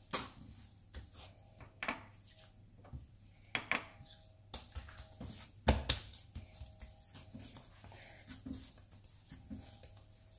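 Oiled dough being kneaded by hand on a stone countertop: irregular knocks and taps as hands and dough press and strike the counter, the loudest about six seconds in.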